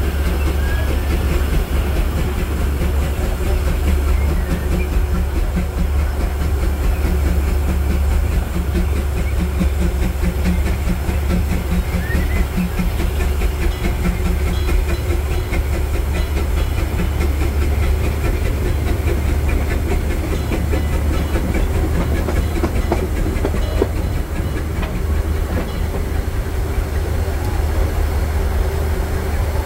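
Disneyland Railroad train hauled by the steam locomotive E.P. Ripley, heard from the car right behind its tender while under way: a steady rumble of wheels on the track with light clicking throughout.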